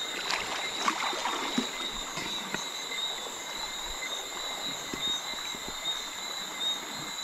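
Shallow river water swishing and splashing as people wade upstream at night, with small knocks from feet and stones. A steady high-pitched chirring hangs over it.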